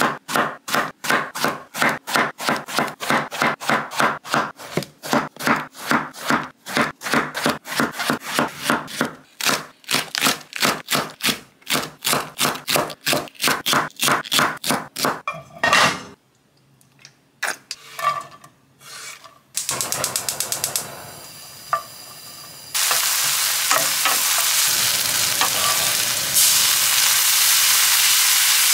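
Cooking in a home kitchen: a fast run of even, sharp strokes, about three a second, lasting some sixteen seconds. After a short pause with a few scattered knocks, a steady sizzle of food frying in a pan starts and gets louder twice.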